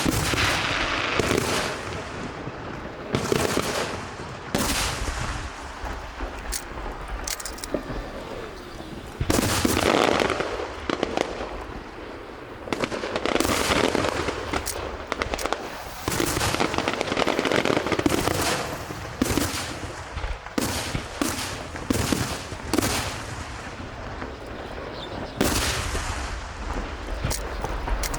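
Aerial fireworks bursting in rapid volleys, with sharp bangs and crackling that come in clusters and ease off briefly between them.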